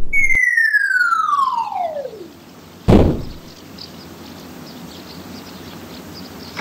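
Cartoon falling-whistle sound effect: a single whistle gliding steadily down in pitch over about two seconds, then a heavy thud about three seconds in, marking the falling box hitting the ground.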